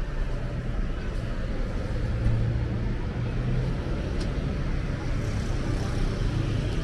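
Street traffic with a nearby vehicle engine running, its low hum loudest about two to three seconds in.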